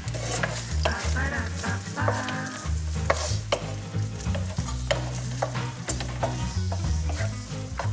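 Fusilli and morel mushrooms sizzling in a frying pan as they are stirred, with frequent sharp clicks of the utensil against the pan.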